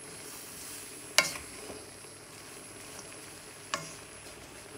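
Pumpkin leaves and jackfruit seeds sizzling in a pan while a wooden spatula stirs them. Two sharp knocks of the spatula against the pan stand out, one about a second in and one later on.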